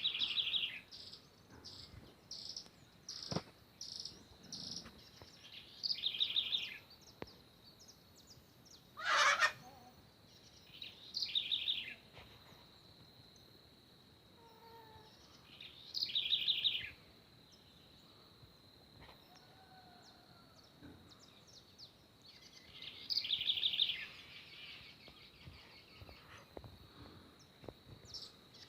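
Birds calling outdoors in short trilled phrases every few seconds, over a steady high thin whine. The loudest call comes about nine seconds in and sweeps downward.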